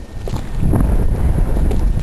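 Wind buffeting the microphone: a loud, steady low rumble, with a few faint short knocks.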